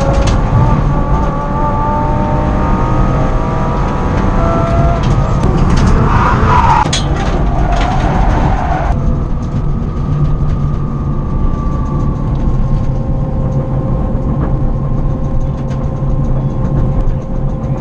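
Electric vehicle running: a motor whine of several tones that slowly falls in pitch, over a steady low rumble of rolling noise. After about nine seconds the whine settles to a steady pitch.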